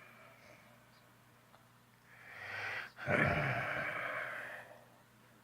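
Snoring while asleep: a soft breath, then about three seconds in a loud snore with a low rattle that trails off over a second and a half.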